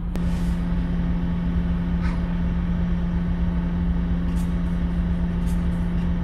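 Car engine running, heard from inside the cabin: a steady low hum over road rumble, with a few faint clicks.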